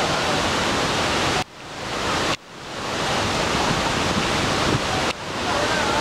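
Hogenakkal Falls on the Kaveri River: a steady loud rush of white water pouring over rock ledges. The level drops sharply three times and swells back within about a second each time.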